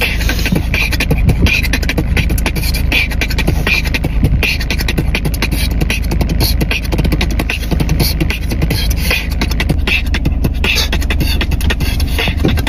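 Beatboxing: a person making fast, dense percussive clicks and snare-like hits with the mouth, without a break.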